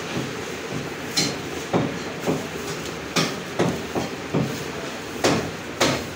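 Knife and goat leg knocking against a wooden butcher's chopping block while membrane and fat are trimmed from the leg: about nine irregular sharp knocks over a steady background hum.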